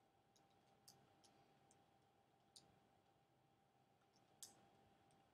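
Near silence with about seven faint, irregular clicks of keys being pressed, the strongest near the end, over a faint steady hum.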